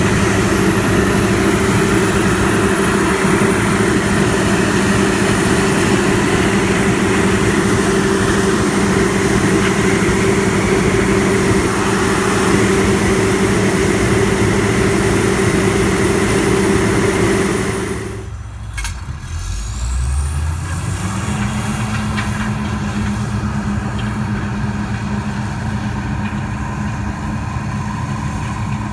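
Diesel engine of a Peterbilt grain truck running steadily. About two-thirds of the way through the sound breaks off abruptly, then a quieter engine hum comes in, rises briefly and settles.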